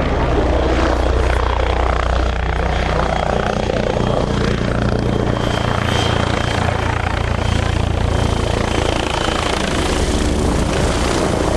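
Helicopter running, loud and steady: a low, fast rotor beat under a thin high whine.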